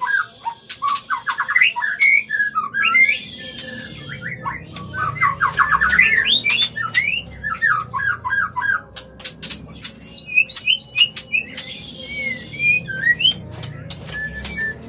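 White-rumped shama (murai batu) giving its breeding-season call, the call of a bird in breeding condition. It is rapid runs of short sweeping notes broken by harsh hissing rasps and sharp ticks.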